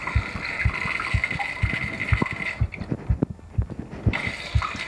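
Water hissing through a toilet's fill line as the tank refills, cutting out for about a second and a half midway. Under it runs a steady series of low thumps, about two a second.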